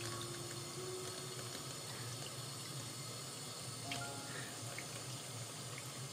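Water running steadily from a small handheld shower sprayer over a kitten's fur and splashing into a sink.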